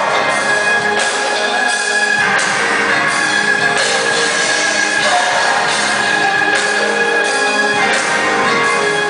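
Music: held chords that change every second or two at a steady level.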